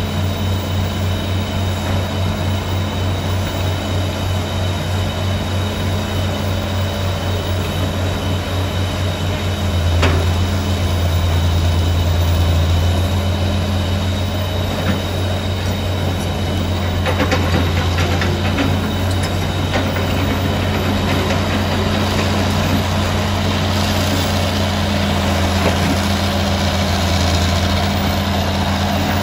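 Old hydraulic excavator's diesel engine running steadily while it handles a big log with its grapple, the engine working harder and louder for a few seconds about ten seconds in. A knock comes about ten seconds in, and a few short metal clanks a few seconds later.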